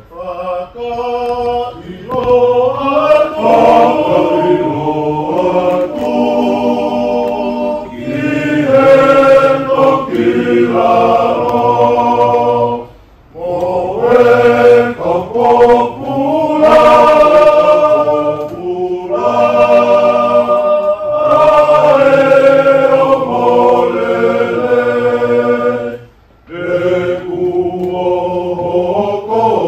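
A group of voices singing a chant-like hymn in harmony, in long held phrases with short breaks about 13 and 26 seconds in.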